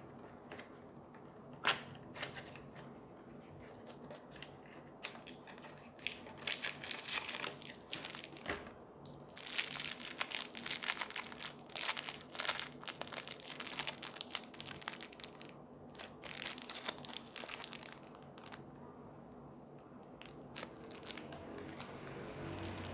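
Small clear plastic bag of fixture accessories crinkling as hands handle it, in dense bursts through the middle, with one sharp click a couple of seconds before.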